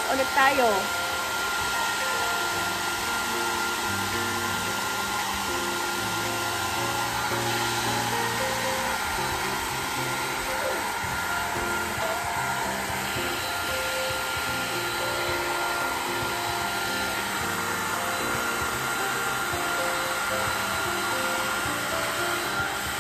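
Pet blow dryer running steadily with a thin high whine, blowing on a wet puppy's coat to dry it after a bath. Background music plays along with it.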